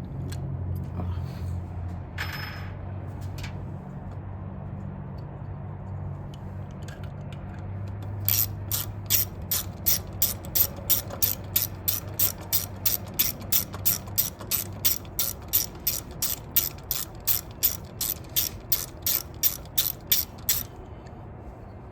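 Socket ratchet wrench clicking at about three clicks a second as it turns out a bolt; the clicking starts about eight seconds in and stops shortly before the end.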